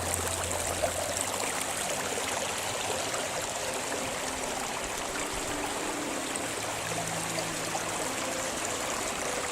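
Steady rushing of falling water: the Mealt waterfall plunging off the sea cliff at Kilt Rock.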